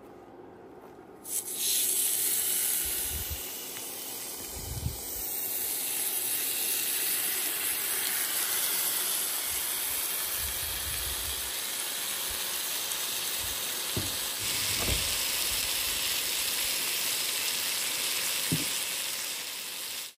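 Steaks searing in a hot cast-iron skillet: a loud sizzle starts suddenly about a second in as the meat goes into the pan and then holds steady. A few dull low thumps sound underneath.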